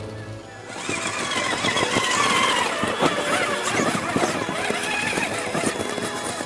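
Traxxas Summit RC truck's electric drivetrain whining, the pitch rising and falling with the throttle, with its steel tire chains clinking and knocking as it climbs through snow. The sound starts about a second in.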